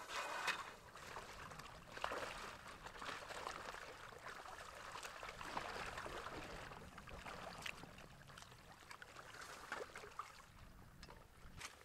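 Faint sloshing of pond water with scattered small clicks of broken rotten ice, about half an inch thick, as people wade in waders through a partly frozen pond.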